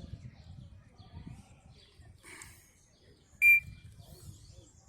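A parrot gives one short, shrill, whistle-like call about three and a half seconds in, with a softer rasping call a second earlier, over a low background rumble.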